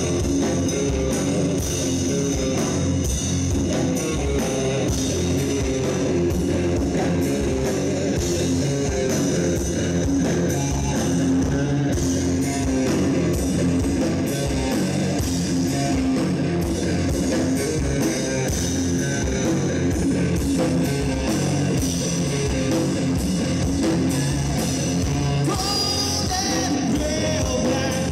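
Live rock band playing through a PA: electric guitars, bass guitar and drum kit, with a man singing into a microphone.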